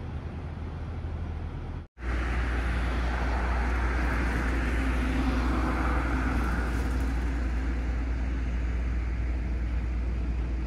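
Steady outdoor rumble with a low, engine-like hum under a noisy hiss. It breaks off for an instant about two seconds in and resumes a little louder.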